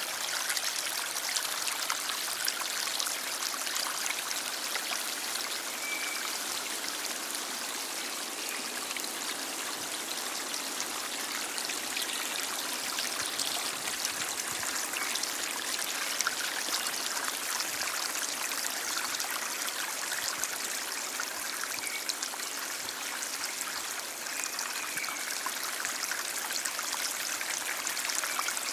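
A stream flowing steadily: a constant rush of running water with fine trickling and splashing detail.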